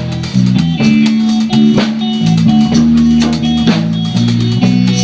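A rock band playing in a rehearsal room, no vocals: electric guitar and bass guitar over a drum kit keeping a steady beat, the bass moving between held notes.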